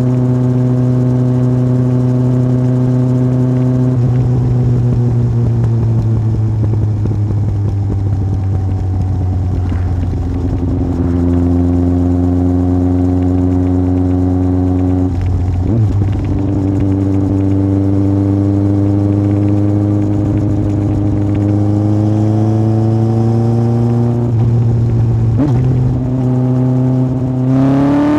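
Yamaha Fazer 1000's inline-four engine running through a MIVV aftermarket exhaust at steady riding revs. The pitch holds, steps around the middle and climbs slowly, then rises sharply near the end as the bike accelerates.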